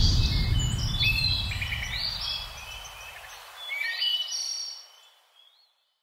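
Small birds chirping and tweeting in many short, high calls that glide up and down, over a deep rumble that fades out over the first three seconds or so. The chirping stops about five seconds in.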